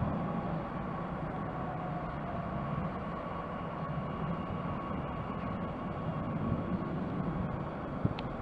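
DB Class 442 Talent 2 electric multiple unit running slowly into the platform, braking toward a stop: a steady low rumble and rolling noise with a faint, steady high whine.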